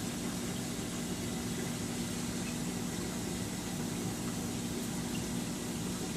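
Steady hum and rushing water of a reef aquarium's circulation and return pumps, unchanging throughout.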